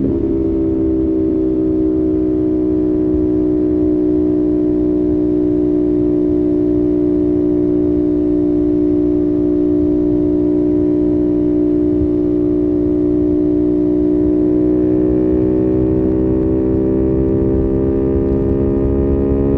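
CFMOTO 450SS parallel-twin engine running at a steady cruising speed, its pitch holding nearly level and then rising gently in the last few seconds as it picks up speed. A low rush of wind and road noise runs beneath it.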